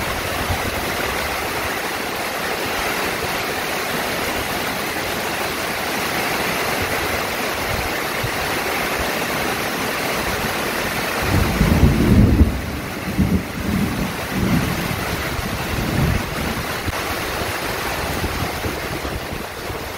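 Steady rain falling in strong wind. From about eleven seconds in, a run of low rumbling gusts hits the microphone for five seconds or so, the loudest near the start of the run.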